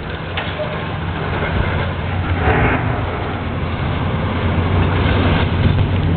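Demolition excavator's diesel engine running steadily under load, with a brief noisier burst about two and a half seconds in.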